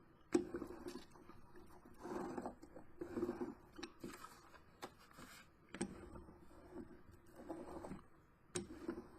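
Hand roller being worked over a freshly glued journal cover, faint rubbing and rolling strokes on paper and board, with a few sharp clicks of the tool against the table.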